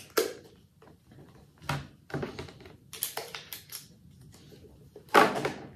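Plastic clicks and knocks from a metered-dose inhaler and its clear plastic spacer being handled and fitted together, with a louder, longer noisy burst about five seconds in.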